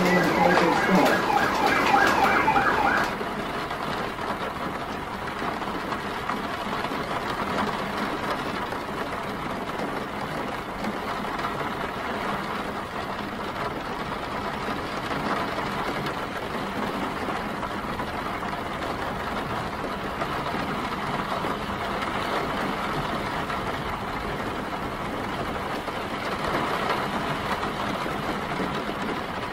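A passing emergency vehicle's siren warbles rapidly up and down, then cuts out about three seconds in. Steady hiss of rain and city traffic carries on after it.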